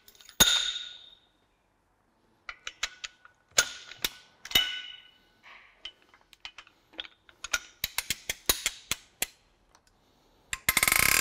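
Socket wrench on a cylinder-head bolt: scattered metallic clicks and clinks as the tool is turned and reset, then a fast run of ratchet clicks near the end. This is the angle-tightening stage of the head bolts, each turned a further 90°.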